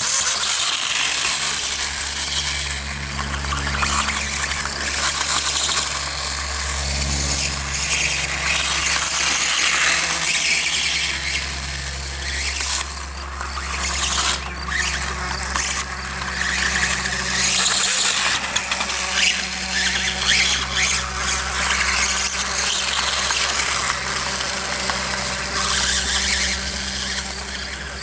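RC dirtbike running, its motor and drivetrain giving a high-pitched whine that swells and drops away again and again as it speeds up and slows down.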